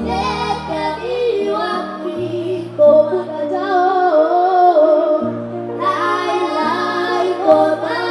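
Two young girls singing together into microphones in two-part harmony, over instrumental accompaniment with long held low notes that change every second or two.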